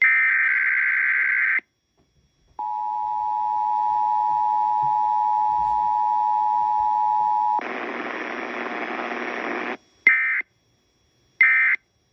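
Emergency Alert System test signal: the last buzzy SAME header data burst ends about a second and a half in. After a short pause, the two-tone attention signal sounds steadily for about five seconds. Then about two seconds of hiss, and near the end two short buzzy end-of-message data bursts.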